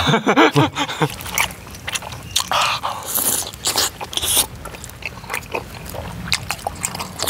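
Close-miked chewing and mouth sounds of people eating chewy tteokbokki rice cakes in thick spicy sauce, with many short wet clicks and smacks. A brief voice is heard in the first second.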